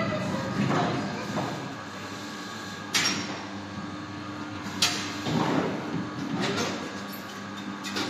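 Two sharp metallic knocks about two seconds apart, each with a short ring: the arm and bucket of a children's ride-on play excavator bumping as it is worked.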